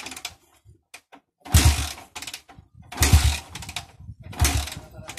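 Honda TMX 155 single-cylinder engine being kick-started three times, about a second and a half apart. Each kick turns it over briefly but it does not catch. The engine has been choked while fuel is still not flowing down to the carburetor.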